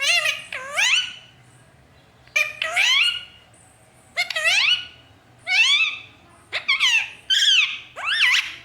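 A pet parrot calling: a string of short, shrill calls that sweep sharply up and down in pitch, coming in clusters about a second apart.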